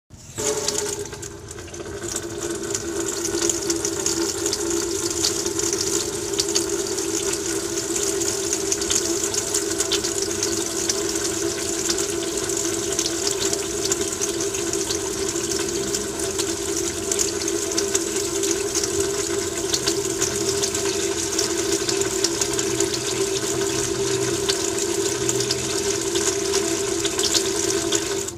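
Water running from a sink tap into the basin: a steady splashing stream with a constant hum beneath it, starting abruptly and cut off suddenly at the end.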